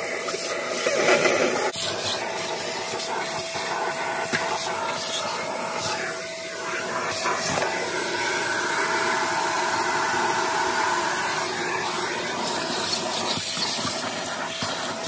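Vacuum cleaner running, its hose nozzle sucking up debris from a car's bare metal floor pan. There is a steady rushing hiss with a steady motor whine underneath, and it gets louder for a moment about a second in.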